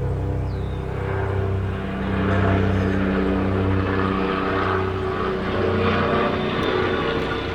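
Nissan Quest minivan's engine and exhaust running steadily, a low multi-toned drone whose pitch wavers a little.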